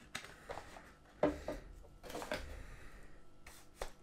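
A XILETU camera tripod's telescoping legs being handled as the sections are pulled out and locked: a few scattered clicks and knocks, the sharpest about a second in, over quiet room tone.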